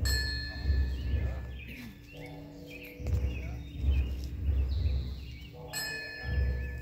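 Temple bells struck in turn: a higher, clear bell rings out at the start and again near the end, with a lower-pitched bell sounding between them, each tone ringing on for seconds. Irregular deep thuds sound underneath, and birds chirp faintly.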